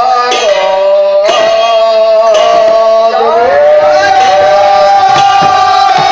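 Bengali devotional kirtan music: khol clay drums struck under long, loud held high notes, one of which glides up in pitch about halfway through.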